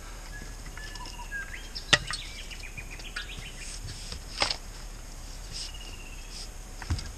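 Two sharp knocks of a spade at work around a steel drain grate set in wet soil, about two and a half seconds apart, with birds calling in the background, including a quick falling run of notes between the knocks.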